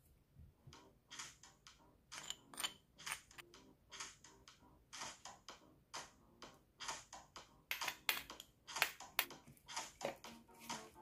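A metal spoon clicking against a glass mixing bowl, a quick, irregular run of light clicks as seasonings are spooned in and stirred into a sauce. The clicks start about a second in and come thicker and louder near the end, while the stirring.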